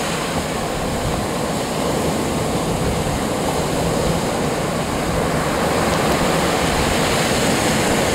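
Steady rush of surf breaking and washing up a sand beach, with wind rumbling on the microphone.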